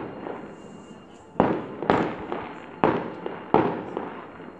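Fireworks exploding: four sharp bangs starting about a second and a half in, a half-second to a second apart, each trailing off in a long echo.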